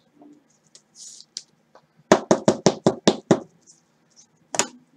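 Rapid tapping by hand: about eight quick knocks in just over a second, evenly spaced, then one more knock near the end.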